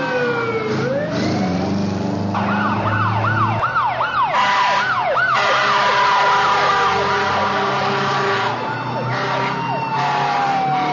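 Emergency-vehicle siren: a slow falling wail, then from about two seconds in a fast yelp of quick rising-and-falling sweeps, about two a second, easing back into slow falling wails near the end.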